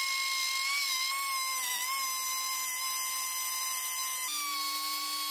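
Electric plunge router with a 2 mm bit running at high speed, cutting circular grooves into plywood: a steady high-pitched whine whose pitch sags slightly about two seconds in as the bit takes load.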